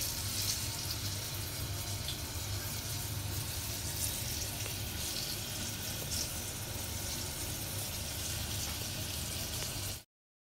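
Breaded chicken pieces deep-frying in oil: a steady sizzling hiss with faint scattered crackles over a low hum. It cuts off suddenly near the end.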